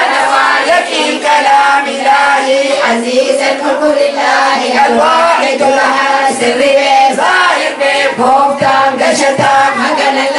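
A group of voices singing a chant together.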